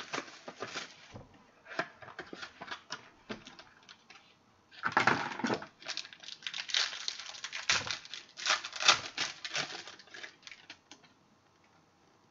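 Hands opening and handling a box of football trading cards: rustling and crinkling of packaging and cardboard, with a longer scraping tear about five seconds in and a quick run of sharp clicks and taps of cards being handled around nine seconds.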